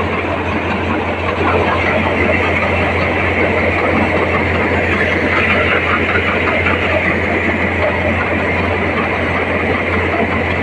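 NVT thresher running, driven by a John Deere 5050D tractor's diesel engine, threshing sorghum heads as they are fed in: steady, loud machine noise with a low hum underneath.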